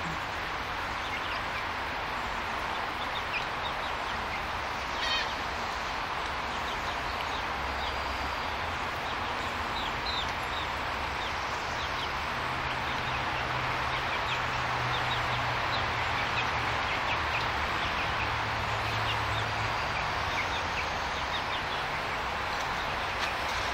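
Young chicks peeping: many short, high chirps scattered throughout, over a steady background hiss.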